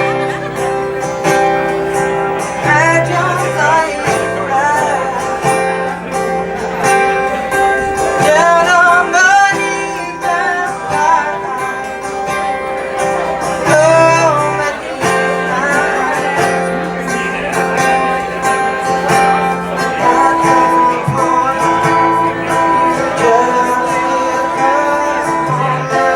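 A live song: guitar played in sustained chords with a voice singing the melody in phrases over it.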